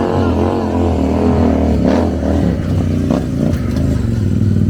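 Stunt motorcycle's engine running and being revved up and down, its pitch rising and falling under the throttle.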